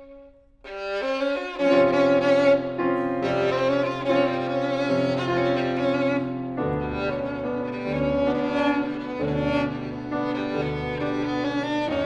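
Violin and piano playing contemporary chamber music. After a brief pause just under a second in, both come in loudly, with low piano notes repeating through the second half.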